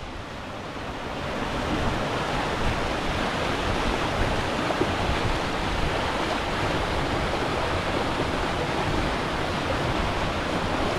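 A small creek rushing and splashing over rocks, a steady wash of water noise that fades in over the first two seconds.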